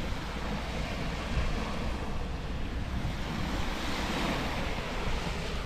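Wind blowing across the microphone with a low rumble, over the steady wash of surf on the beach; the noise swells slightly about four seconds in.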